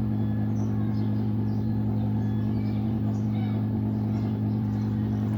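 Steady low hum from repair-bench equipment, unchanging throughout, with faint voices in the background.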